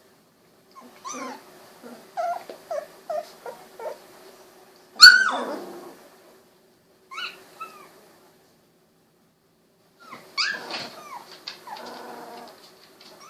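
Two-week-old Golden Retriever puppies whimpering and squeaking in a string of short, high cries. One loud falling squeal comes about five seconds in, and a few more whines follow later.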